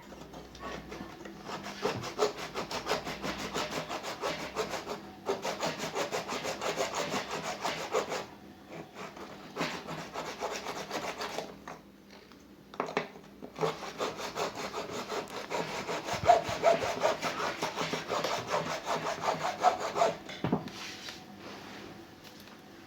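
A tool rasping against hard material in rapid, even strokes, in three long stretches with short pauses between them, like sawing or filing during work on a washing machine's parts.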